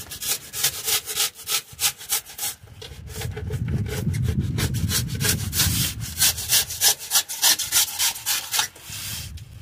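Rhythmic scraping strokes of a hand tool worked back and forth against the underside of a van's rocker panel. The strokes come about three a second and grow stronger and more regular in the second half.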